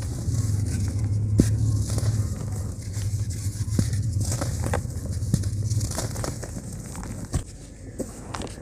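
Hands crumbling lumps of dry, hardened cement in a plastic tub: gritty crunching and falling powder, with a few sharp cracks as pieces break off. A low steady hum underneath stops about six seconds in.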